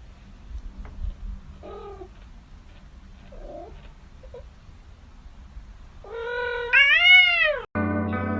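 A cat making a few faint short meows, then one long, loud yowl near the end that rises and then falls in pitch before cutting off suddenly. Music comes in right after the cut.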